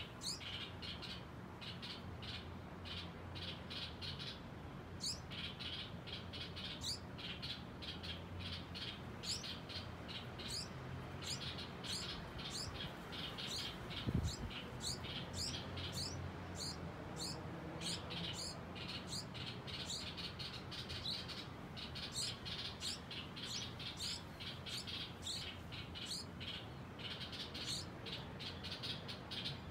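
Light-vented bulbul nestlings begging for food: rapid runs of thin, high, rising chirps in bouts, with a longer lull around halfway. A single dull thump about 14 seconds in.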